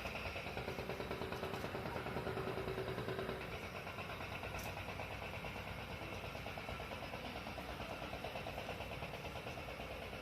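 An engine running steadily with a regular pulse of about four to five beats a second.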